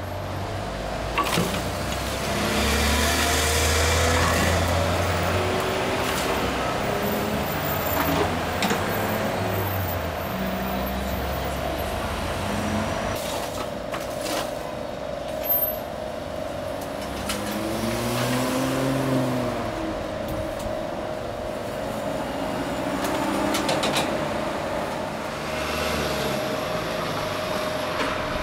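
Busy street traffic: cars and heavier vehicles passing one after another, the loudest going by a few seconds in. Under it runs a steady hum, with a few sharp clicks.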